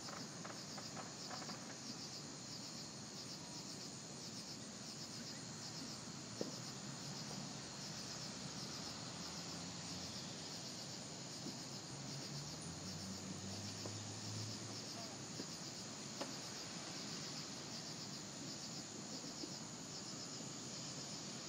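Night insects chirping in a steady, regularly pulsing chorus, with a few faint sharp pops, the clearest about six seconds in, and a brief low hum about two-thirds of the way through.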